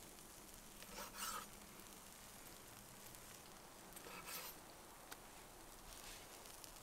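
A large kitchen knife slicing through soft roasted green peppers onto a wooden cutting board: two short, wet cutting sounds about three seconds apart, with a faint click near the end and near silence in between.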